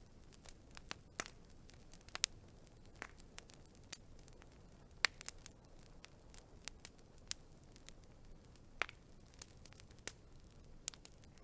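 Burning wood fire crackling: irregular sharp pops and snaps over a faint steady hiss, with louder pops about two seconds in, about five seconds in and near the end.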